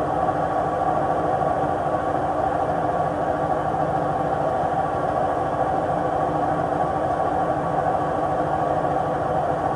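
Samsung WW80J5555FWEU washing machine's drum spinning, a steady loud drone of many fixed tones over a low rumble, from drum bearings that the owners think are worn out.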